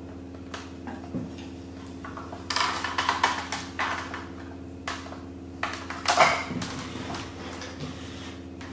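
Kitchen utensils clinking and scraping against dishes in a few short bursts during stirring, over a steady low hum.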